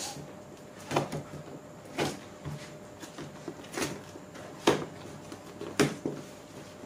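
A cardboard box being torn open by hand: about five short, sharp rips and crackles of cardboard and packing tape, spaced roughly a second apart, the loudest a little before five seconds in.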